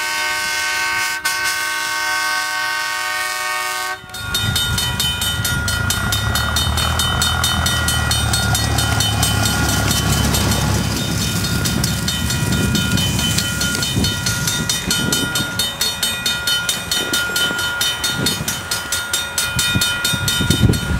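A narrow-gauge train sounds a long, chord-like horn blast as it nears a grade crossing; the blast cuts off about four seconds in. The train then passes close by with a low rumble and a fast, regular ticking, with wheel thumps over the rail joints near the end.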